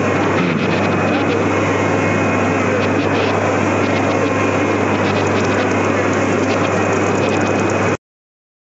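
Steady whirring machine noise of a large UV flatbed printer running, with a constant low hum and crowd chatter behind it; it cuts off suddenly near the end.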